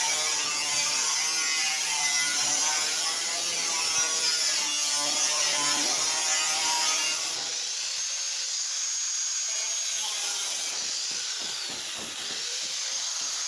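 Angle grinder cutting stainless-steel sheet: a steady hissing cut under a high whine. Near the end the whine dips in pitch as the disc is loaded, then climbs back.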